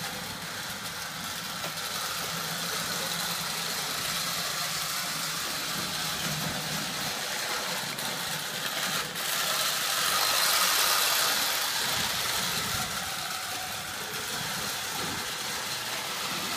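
Electric O gauge toy train running on tinplate track: a steady whir of the motor and wheels, getting a little louder about ten seconds in.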